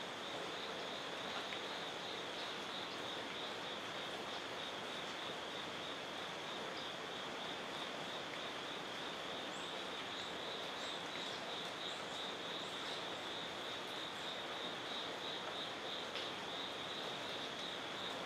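A steady insect chorus: a continuous, evenly pulsing high trill over a constant background hiss.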